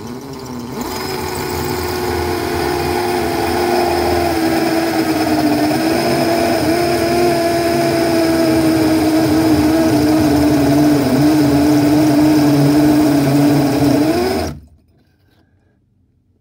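Electric drill with a toothed core bit cutting a hole through wall plaster and into brick, its motor running steadily for about fourteen seconds. Its pitch sags slowly as the bit bites, then stops suddenly near the end.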